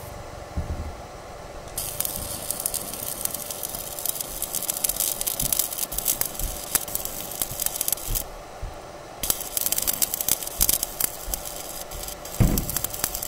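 Stick (arc) welding on steel reinforcing bars: the electrode's arc crackles and sizzles steadily, starting about two seconds in, breaks off for about a second around eight seconds, then strikes up again.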